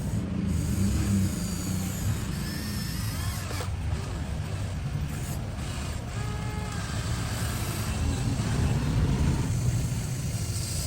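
Radio-controlled model excavator and dump truck at work: a steady low engine-like rumble with brief whining glides from their motors.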